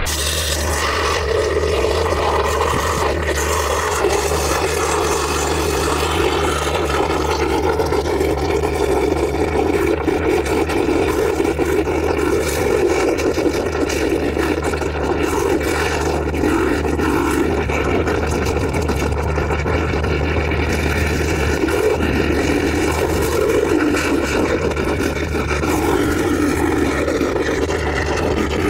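Thermal oxygen lance burning into a solid steel shaft: a steady rushing noise of oxygen jetting through the burning rod and molten steel spattering. A steady low drone runs underneath.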